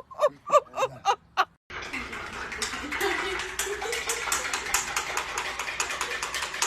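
A person laughing in short, rhythmic bursts. About a second and a half in, this cuts to a busy background of clatter and many small clicks, with a faint voice.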